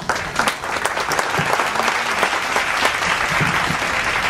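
An audience applauding, many hands clapping together in a steady, dense applause.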